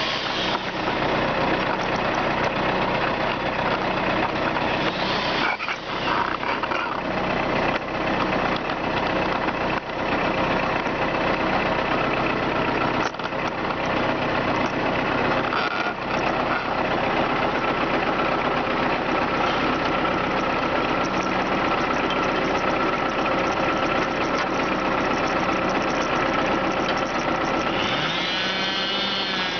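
An engine running steadily at idle, revved up briefly near the end.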